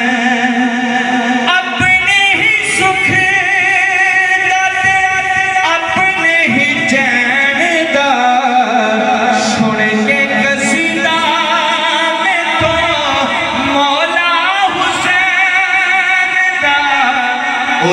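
A man singing a manqabat (an Urdu/Punjabi devotional song in praise of Ali) into a microphone, with long held notes whose pitch wavers in ornamented runs.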